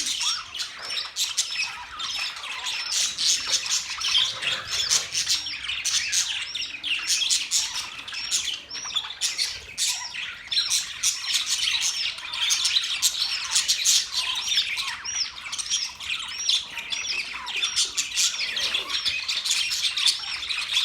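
A group of budgerigars chattering: many overlapping chirps, squawks and warbling notes without a break.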